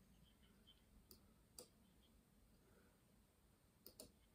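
Near silence: quiet room tone with four faint, sharp clicks, one stronger one in the middle and two close together near the end.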